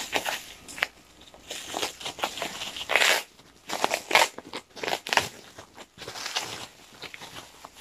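Plastic bubble wrap crinkling and rustling in the hands as it is handled and pulled open around a packaged item, in irregular bursts, the loudest about three seconds in.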